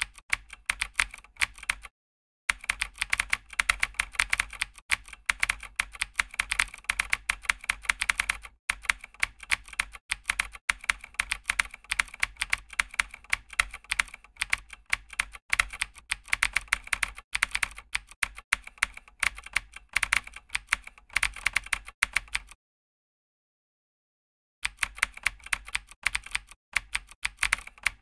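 Computer keyboard typing sound effect: rapid key clicks as text is typed out. They pause for half a second about two seconds in and for about two seconds near the end, then resume.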